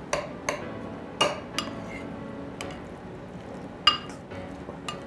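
Metal spoon clinking and scraping against a ceramic rice bowl while mixing rice: about seven scattered clinks, each with a brief ring, the loudest a little under four seconds in.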